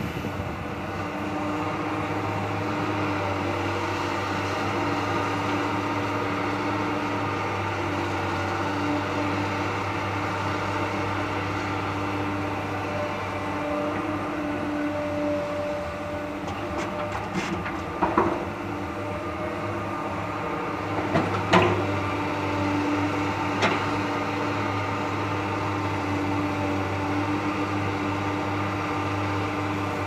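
Diesel engines of a hydraulic excavator and a Hino dump truck running steadily while the excavator loads red earth into the truck's steel bed. Three sharp knocks in the second half, from the bucket and load hitting the bed.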